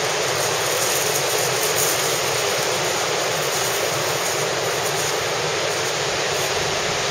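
Steady, unbroken rush of rough sea surf breaking and washing on a shingle beach.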